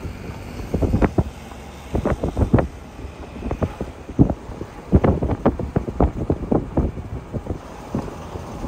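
Wind buffeting the microphone in irregular gusts, with low rumbles and sharp blasts.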